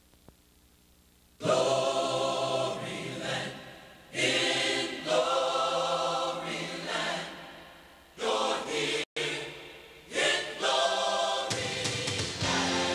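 Near silence for about a second and a half, then a choir singing held chords in several swelling phrases separated by short gaps. A low bass accompaniment comes in near the end as the song gets under way.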